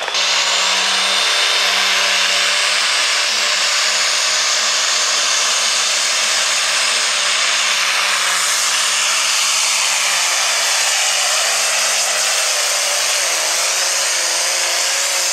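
Light super stock pulling tractor's turbocharged diesel engine running wide open under load during a pull: a loud, unbroken roar.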